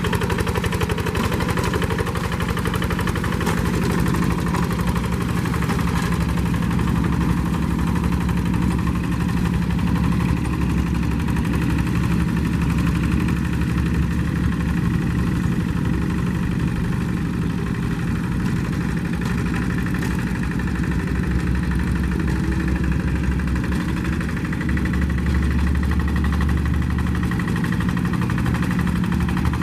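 Farm tractor engine running steadily at an even speed, with a fast, regular low chugging.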